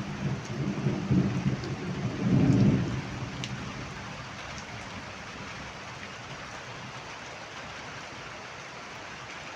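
Heavy rain falling steadily. A loud low rumble runs through the first three seconds and dies away, leaving the even hiss of the downpour.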